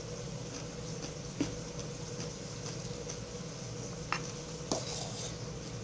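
A metal spoon clicking lightly against a ceramic bowl a few times as rice porridge is scooped and eaten, over a steady low hum.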